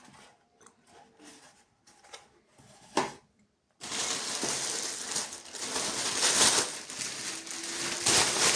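A few soft clicks of small items being handled, a sharper click about three seconds in, then plastic packaging crinkling and rustling continuously as it is handled.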